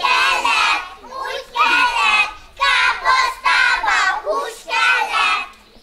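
A group of young children singing together in unison, in short loud phrases with brief breaks between them.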